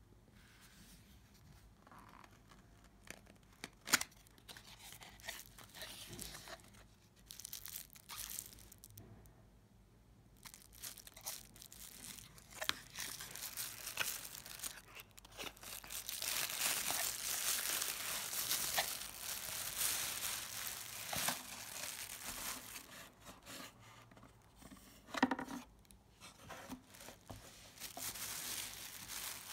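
Hands opening a cardboard box and pulling out its contents: rustling and scraping of cardboard and the crinkle of a plastic wrapping bag. The sound is mostly quiet for the first ten seconds apart from a sharp tap about four seconds in, then becomes steady, busy rustling that is loudest in the middle, with a knock near the end.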